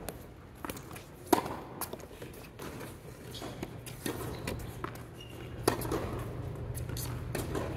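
Tennis rally on an indoor hard court: sharp pops of rackets striking the ball, the loudest about a second and a half in and again near six seconds, with fainter ball bounces between. A low steady hum runs underneath, stronger from about three seconds in.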